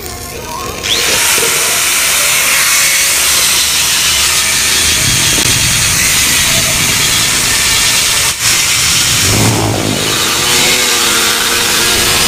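A power tool working steadily on the metal of a Yamaha RX-King two-stroke exhaust muffler as its insides are hollowed out. It starts abruptly about a second in and breaks off briefly near eight seconds.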